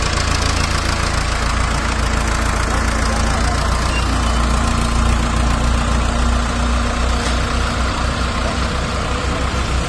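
Tractor diesel engine running steadily at idle with a low chugging; near the end the chugging becomes a quick, even pulsing.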